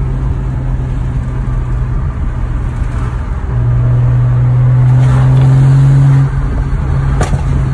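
BMW N55 turbocharged inline-six heard from inside the cabin under an MHD stage 2+ tune, holding a steady drone. About three and a half seconds in it gets much louder under throttle for nearly three seconds, then drops off suddenly as the throttle closes, followed about a second later by a single sharp exhaust pop.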